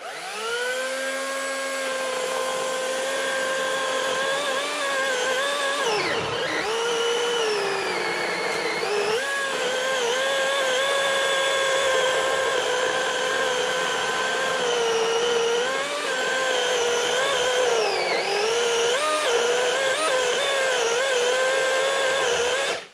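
Greenworks Commercial GS180 18-inch battery chainsaw cutting into a large tree trunk. The electric motor spins up with a quick rising whine, then runs at a steady high pitch that sags several times as the chain bogs down in the wood. It cuts off suddenly when the trigger is released.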